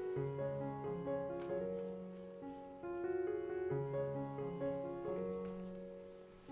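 Background piano music: a melody of single notes and chords, each note fading after it is struck.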